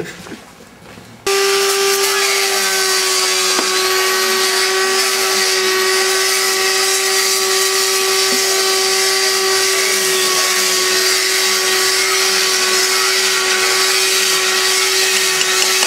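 Handheld power tool hooked by a hose to a canister dust extractor, switched on about a second in and then running steadily at one pitch: a steady hum under a loud hiss.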